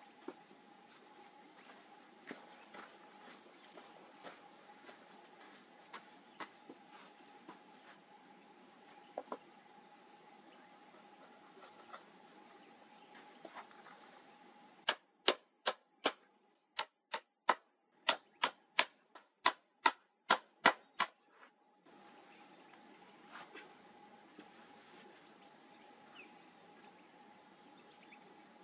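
Crickets chirring steadily. About halfway through comes a run of about a dozen sharp wooden knocks, roughly two a second, as a long wooden pole is pounded down into a hollow log. The insect sound drops out while the knocks last.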